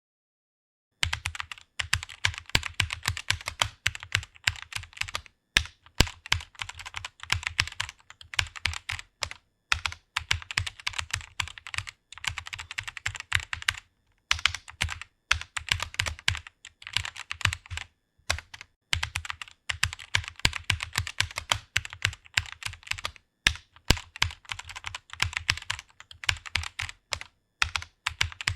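Computer keyboard typing: quick runs of keystrokes clattering at a fast, even pace, broken by several brief pauses. It begins about a second in.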